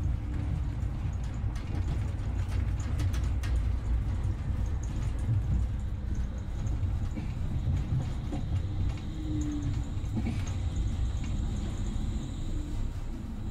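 Steady low rumble of a road vehicle in motion, with scattered light clicks and rattles.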